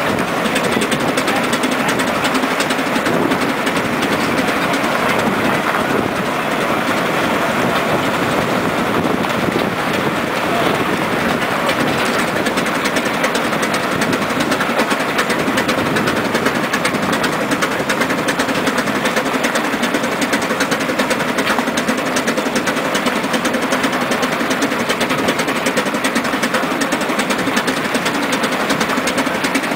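Steam road locomotive 726 running along a gravel road: its machinery makes a steady, loud, fast clatter that stays even throughout.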